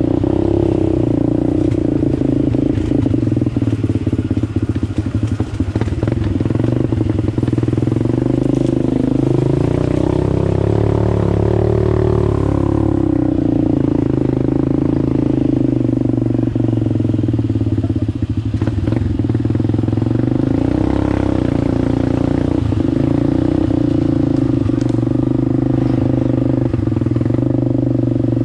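ATV engine running steadily under throttle, its pitch rising and falling slightly as the rider works the throttle, with scattered knocks and rattles from the machine.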